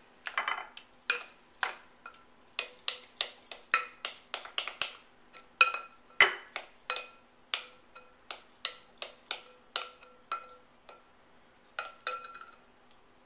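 A utensil scraping and knocking against the inside of a glass mixing bowl as thick corn pudding batter is scraped out into a casserole dish: an irregular run of clinks and scrapes, several leaving a short ringing tone from the glass.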